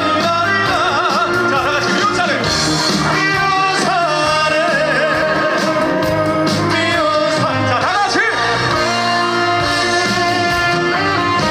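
Upbeat trot song playing loudly over a concert sound system: a band backing with a wavering lead melody on top.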